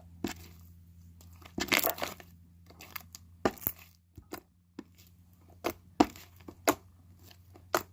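Stiff slime being pulled and squeezed by hand, making separate sharp crackles and tearing snaps, with a denser burst about two seconds in.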